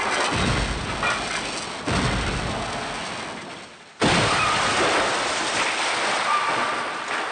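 A run of three short sound-effect clips of a loud, rushing noise with no clear pitch. The second and third each start abruptly, about two and four seconds in, and fade away.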